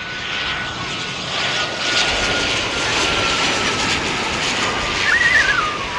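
Airliner passing low overhead on its landing approach: a loud engine rush that swells after about a second, with a thin engine whine sliding slowly down in pitch. A brief wavering chirp sounds near the end.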